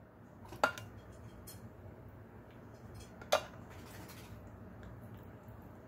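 A serving spoon clinks twice against the dishes, short sharp knocks about a second and three seconds apart, while tomato sauce is scooped and spread over cheese.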